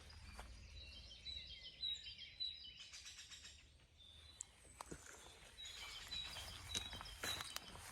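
Faint songbird chirping: two bouts of short, high, repeated chirps, the first about a second in and the second near the end, with a few faint clicks between them.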